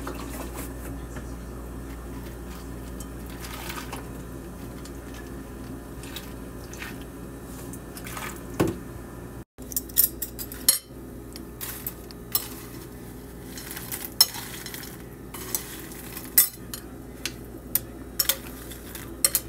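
Metal spoon clinking and scraping against ceramic cereal bowls while stirring cereal in milk. The sharp clinks come thick in the second half, over a steady low hum.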